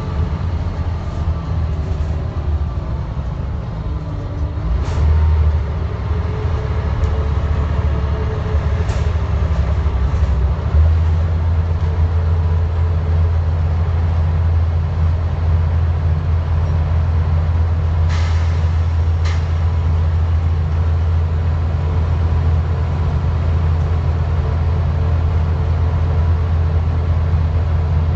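Scania N94UD double-decker bus on the move, heard from the back seats inside the bus: the rear-mounted diesel engine's low, steady drone under road and body noise, the engine note stepping up about five seconds in and again about eleven seconds in. Two short sharp sounds come a little past halfway.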